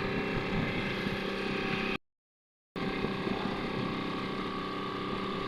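Fishing boat's engine running steadily, a constant hum made of several held tones. The sound cuts out completely for under a second about two seconds in.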